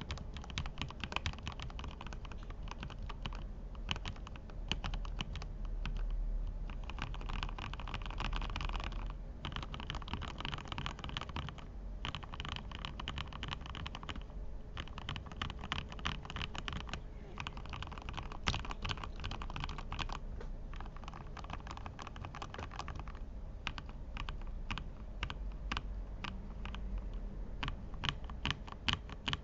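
Lubed mechanical keyboard being typed on quickly, in runs of rapid keystroke clicks with short pauses every few seconds.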